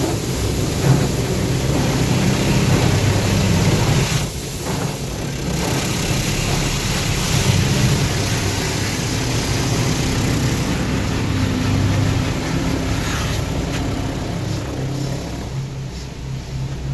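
Automatic car-wash rinse spraying water over a car, with the wash machinery humming, heard from inside the cabin: a steady rush with a low hum that dips briefly about four seconds in.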